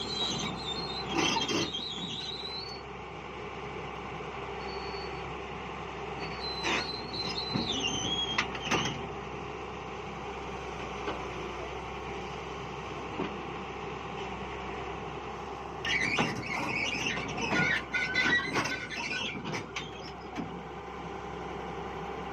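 Tata Hitachi 200-class excavator's diesel engine running steadily, with three spells of high metallic squealing: at the start, about seven seconds in, and about sixteen to twenty seconds in.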